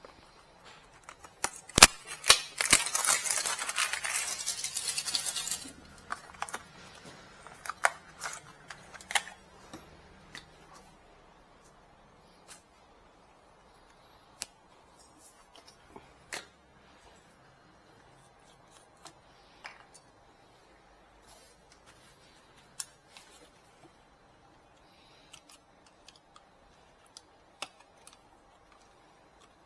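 Handling of a plastic ink bottle during refilling: two sharp clicks, then about three seconds of hissy rustling noise, followed by scattered light clicks and taps.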